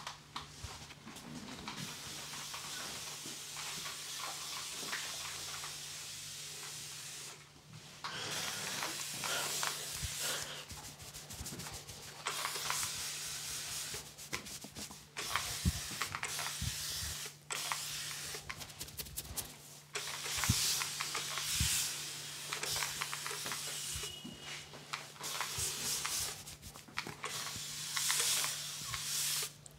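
Hands rubbing and tousling dry hair, then a spray bottle misting water onto the hair in hissing spurts of a second or more, with short breaks between them. A low steady hum runs underneath.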